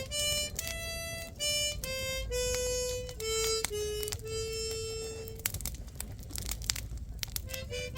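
Music: a slow melody of single held notes, one at a time, stepping up and down in pitch with short breaks between them.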